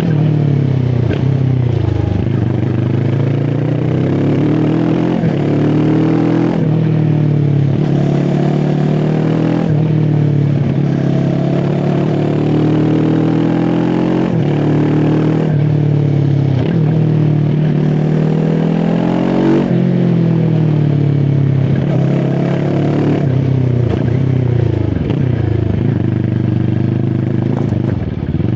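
QJ SRT 450 RX motorcycle engine under way, its note climbing as it accelerates and then dropping sharply, over and over, as it shifts gears or rolls off the throttle.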